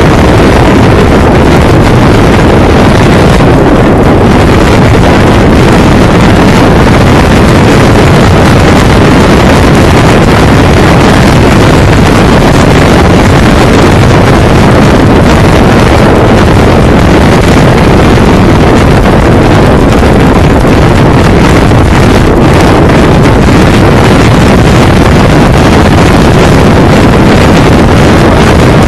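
Wind buffeting the microphone of a camera mounted on a moving motorcycle, a loud steady rumble of wind and road noise with no clear engine note.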